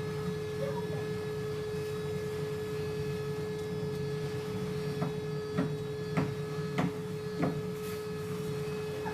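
Steady machine hum with a constant tone over it. In the second half come about five sharp knocks, spaced a little over half a second apart.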